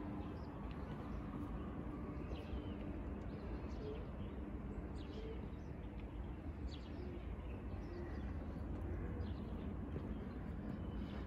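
Small birds chirping, many short high chirps scattered through the whole stretch, over a steady low outdoor city rumble.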